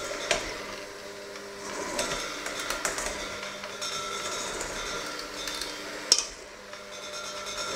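Electric hand mixer running, its beaters knocking and clattering against the stainless steel bowl as they work a crumbly flour mixture. One sharp clack about six seconds in.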